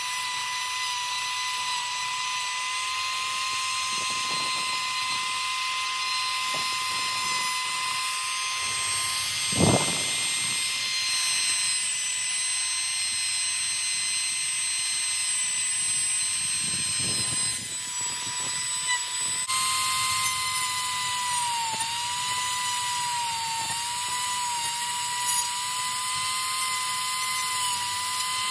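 Handheld rotary tool running at high speed with a steady whine, its bit grinding into the polystyrene foam of a motorcycle helmet liner to enlarge the speaker recess. A brief thump comes about ten seconds in, and in the second half the pitch dips briefly several times.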